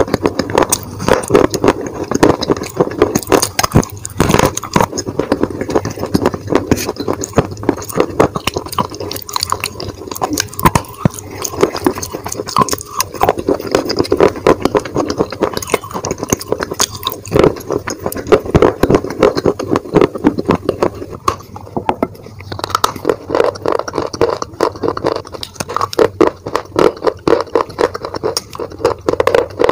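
Soft dry clay crumbled and crushed between fingers, a dense, continuous crunching crackle.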